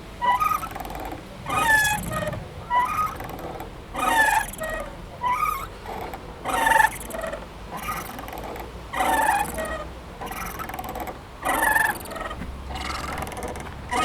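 Playground swing squeaking on its hangers as it swings back and forth: short pitched, gliding squeaks that repeat about every second or two.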